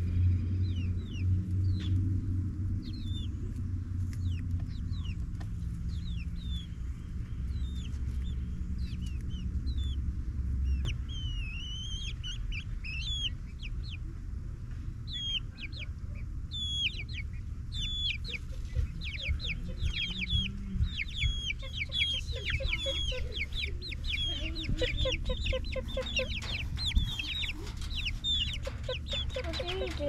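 Young Barred Plymouth Rock, Ameraucana and ISA Brown pullets, about eight weeks old, peeping and clucking in short high falling calls, scattered at first and coming thick and fast from about halfway on. A steady low rumble runs underneath, heaviest in the first ten seconds.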